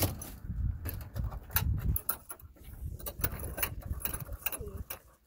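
Irregular clicks and knocks of hands working the latches of a light airplane's engine-cowling oil access door and reaching in for the dipstick, over a low rumble.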